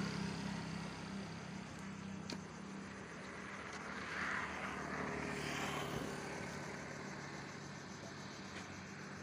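An engine running steadily, a low even hum that holds throughout, with a brief swell of hiss near the middle.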